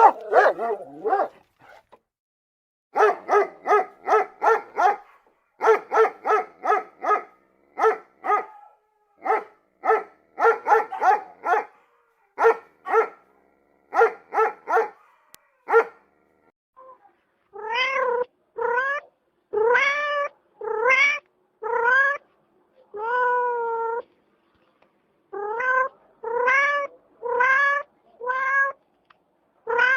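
A small dog yapping in quick bursts of short barks for about the first half. Then a cat meowing over and over, about a dozen drawn-out meows that rise and fall in pitch.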